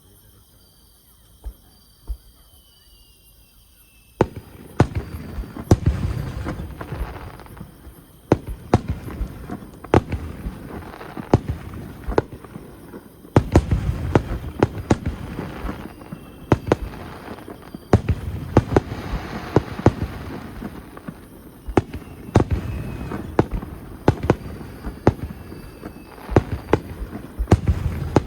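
Fireworks display: after about four quieter seconds, a sudden barrage of sharp bangs and crackling bursts begins and goes on in waves, with many overlapping booms and pops.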